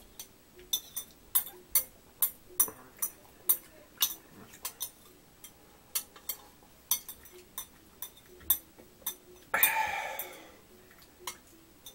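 Chopsticks clicking and tapping irregularly against the rim of a glass bowl, about twice a second, as the last of the ramen sauce is scraped out of the tipped bowl into the mouth. Near the end comes one louder rushing sound lasting about a second.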